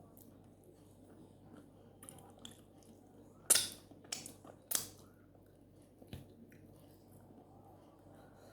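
A person eating close to the microphone: chewing and wet mouth sounds, with three louder, sharp smacks in quick succession near the middle.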